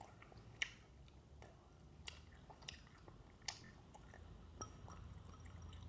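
Faint sticky clicks and squelches of a slime made from melted Fruitella sweets being poked and stretched by hand, about one a second.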